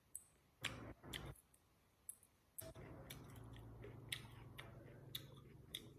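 A person chewing food close to the microphone: scattered sharp mouth clicks and short crunches, with a faint steady low hum under the second half.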